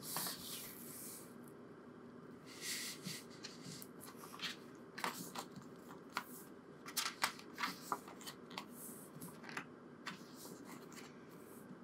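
Hands handling a card-covered CD album and turning its paper pages: faint rustling and sliding, with scattered light clicks and taps.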